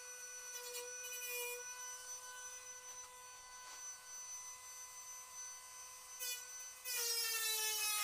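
Dremel rotary tool with a cutting wheel whining steadily at high speed. Near the end its pitch drops a little and it gets louder as the wheel bites into the car's thin quarter-panel sheet metal.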